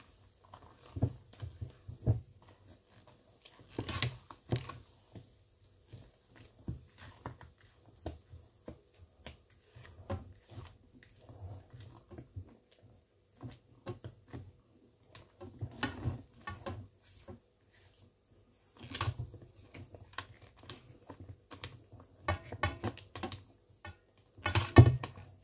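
Spatula folding stiff egg whites into a thick batter in a mixing bowl: irregular soft wet squishes and scrapes, with a brief louder noise near the end.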